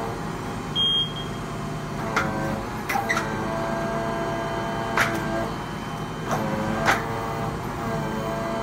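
Hydraulics of a truck-mounted crane whining at steady pitches that step up and down a few times as the boom and brick grab are worked, over the lorry's running engine. A handful of sharp clunks and clicks come from the crane and grab as the pack of bricks is set down.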